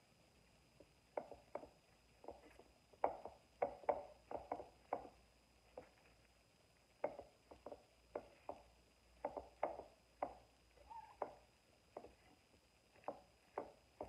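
Raw broccoli florets being pushed off a cutting board into a glass bowl of shredded cabbage, then moved by hand among the vegetables: a string of short, irregular taps and crisp rustles.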